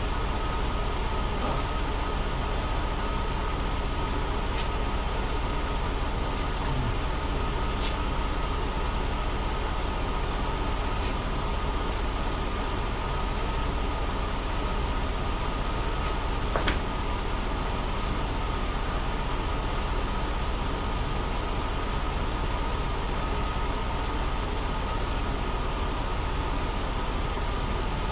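Car engine idling steadily under an open hood, running again after its starter motor was replaced. A single light click sounds partway through.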